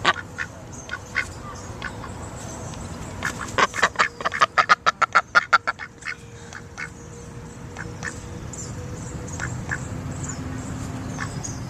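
Ducks quacking: scattered single quacks, then a fast run of a dozen or so loud quacks from about three and a half to six seconds in, then sparser calls again.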